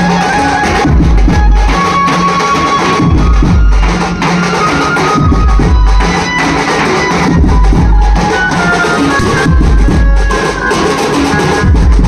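Loud dhol drumming: several large double-headed barrel drums beaten with sticks in a driving rhythm of heavy low beats, with a held melody line playing over it.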